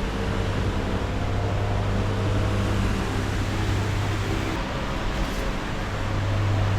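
Steady low electrical machine hum with an even airy rushing, like running fans or ventilation.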